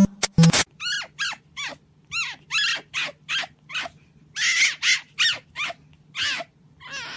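Fennec fox giving a rapid string of short, high squeaky calls, each one falling in pitch, about three a second with a brief pause partway through. A few sharp beats of music end just as it begins.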